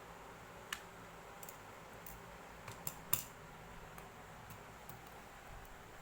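A handful of sharp, light clicks and taps over a faint steady hiss, the loudest a double click about three seconds in.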